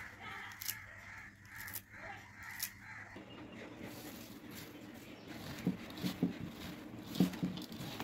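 Hands tossing sliced vegetables in a bowl, with a few short knocks against the bowl about six to seven and a half seconds in. A harsh, wavering call is heard over the first three seconds.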